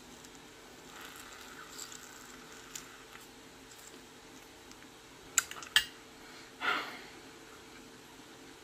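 Quiet chewing of a bite of pork chop taken from a fork. About halfway through come two sharp clicks half a second apart, then a short breathy rush of noise, over a faint steady hum.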